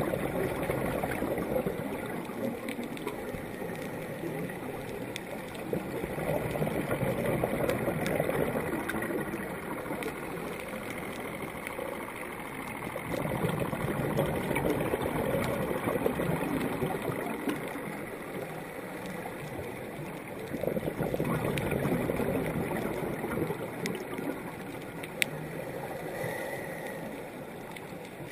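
Scuba diver's exhaled bubbles from the regulator, heard underwater, a bubbling rush that swells and fades about every seven seconds with each breath.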